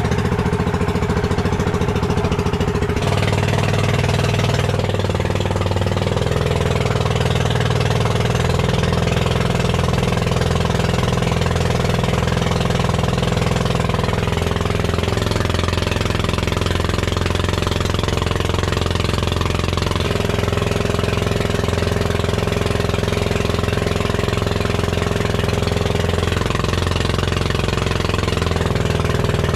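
Motorized fishing boat's (bangka's) engine running steadily under way, its pitch shifting slightly a few times.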